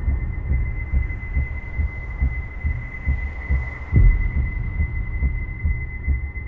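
Film sound design: low, unevenly spaced thumps of the heartbeat kind under a steady high ringing tone. The strongest thump comes about four seconds in.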